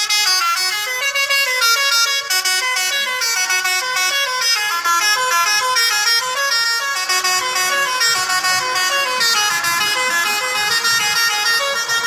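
Lorry's telolet musical horn playing a tune: a stream of horn notes stepping up and down in pitch several times a second.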